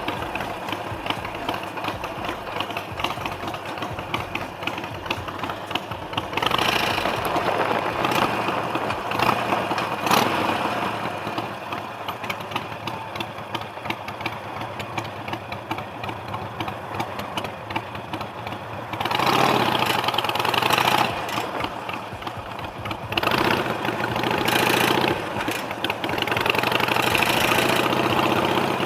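Harley-Davidson Sportster Iron 883 V-twin motorcycle engine running on a ride, with several louder stretches of rushing noise.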